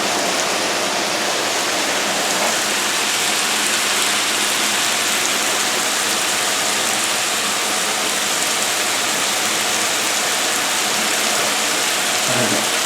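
Ground beef sizzling in a frying pan: a steady hiss.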